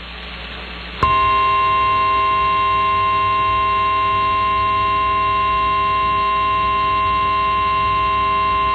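Radio receiver hiss for about a second, then the NOAA Weather Radio 1050 Hz warning alarm tone sounding steadily and loudly. The tone signals that a warning-level alert message follows.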